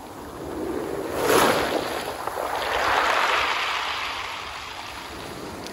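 Small waves washing up a pebble beach strewn with sea spaghetti seaweed, a hissing surge about a second in and a longer swell around three seconds, each drawing back.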